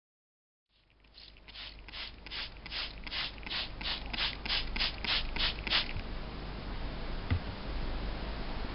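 A trigger spray bottle squirting water onto a Thuringian water hone, about a dozen quick hissing sprays at about three a second, wetting the stone before honing. The sprays stop about six seconds in, leaving a steady hiss with a single click.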